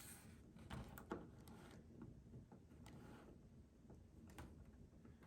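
Near silence with a few faint clicks and light rustles of plastic action figures being handled and posed.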